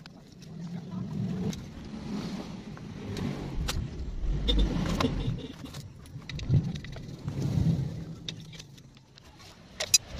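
Low engine rumble of a motor vehicle, swelling and fading a few times, with scattered light clicks.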